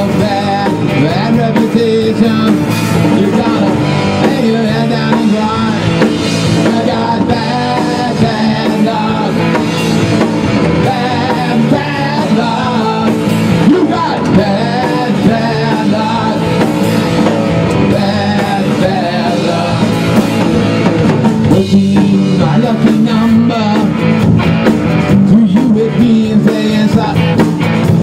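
Rock band playing live: drum kit and electric guitars, with a man singing into the microphone.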